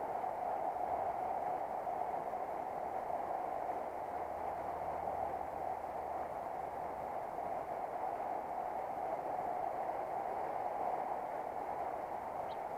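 Steady rush of a shallow river running over stones.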